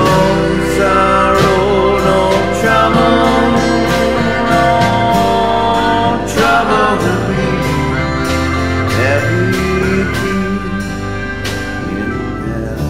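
Country-gospel music with guitar and a melody line that now and then slides and wavers in pitch.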